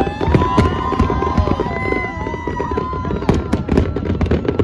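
Aerial fireworks bursting in quick succession, a dense run of bangs and crackles, with several long gliding whistles sounding over them.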